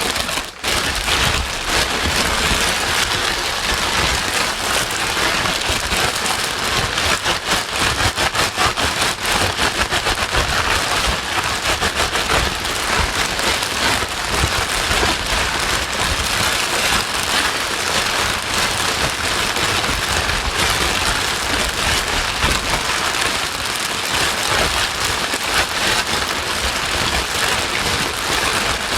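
Steady rain-like white noise, a dense even hiss across all pitches, played to soothe a crying baby to sleep. It dips briefly about half a second in.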